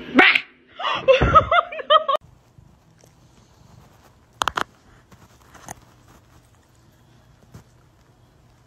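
A short burst of laughter about a second in, after a sharp sound at the very start. Then it goes much quieter, with faint handling noise and a couple of brief clicks.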